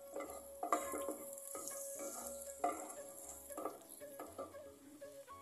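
Ginger-garlic paste sizzling in hot oil in a nonstick pot while a wooden spatula stirs it, scraping the pan bottom about every half second. The paste is being lightly sautéed.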